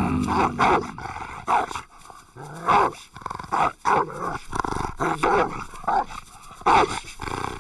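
A cartoon dog barking and growling in a run of short, uneven barks.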